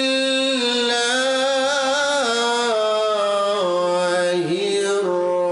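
A man's voice chanting into a microphone in long, held melodic notes that step gradually down in pitch, in the style of Quranic recitation.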